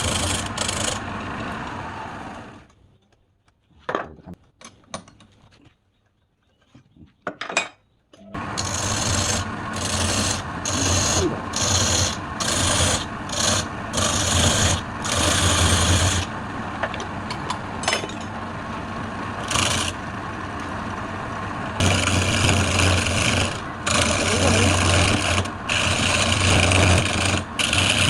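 Wood being scraped or sanded on a woodturning lathe, a rasping noise over the steady hum of the motor. It starts with a short burst, breaks off into a quiet stretch with a few sharp clicks, then runs continuously from about eight seconds in, pulsing in strokes before steadying near the end.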